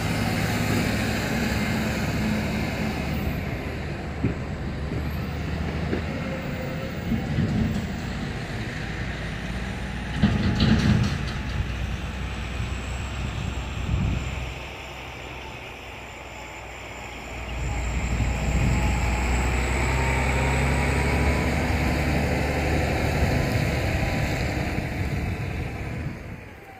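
Low, steady engine rumble of a freight train's distant diesel locomotives approaching, under a continuous rushing noise; it dips for a few seconds in the middle and then comes back stronger.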